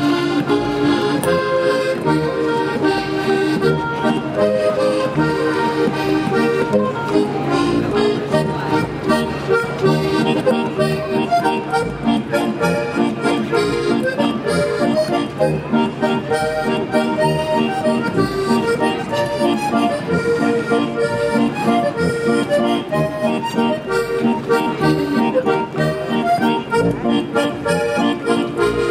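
Lively traditional German folk dance music led by an accordion, with a steady beat.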